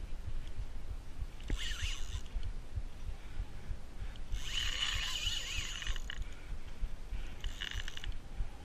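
Heavy spinning reel whirring in three bursts, the longest in the middle, under the load of a hooked kingfish, over a low rumble of handling and wind on the body-worn camera.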